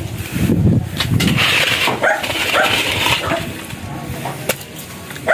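A dog barking a few times in short yelps.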